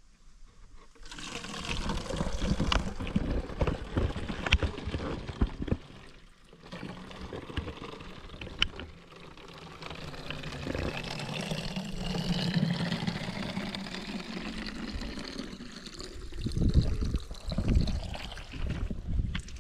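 Water being poured and splashing in two spells with a short break between, with a rising note in the middle stretch.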